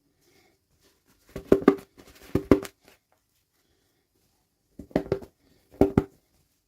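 Small plastic toy pieces and packaging being handled. A quick run of clicks and knocks comes about a second and a half in, and two more sharp knocks come near the end.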